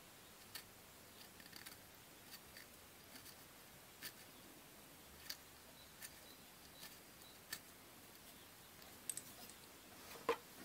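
Faint, irregular small clicks, about one a second, of a three-speed hub's pull chain and axle being handled as the chain is fitted into the hole in the axle end. A sharper click comes near the end.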